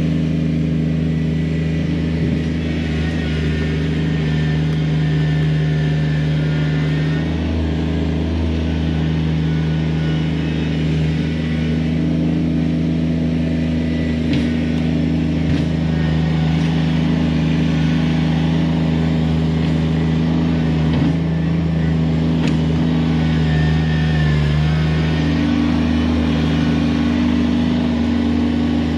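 Kubota BX23S subcompact tractor's three-cylinder diesel engine running steadily as the machine manoeuvres and works its loader, its pitch shifting a few times as the load changes. A few light knocks are heard around the middle.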